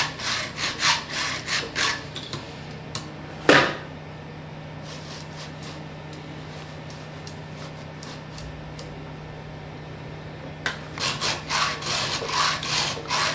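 Round file rasping across saw-chain cutters held in a bar-mounted file guide, at about three strokes a second. A sharp knock comes about three and a half seconds in, followed by several seconds of only faint, scattered strokes, and then steady filing strokes again near the end.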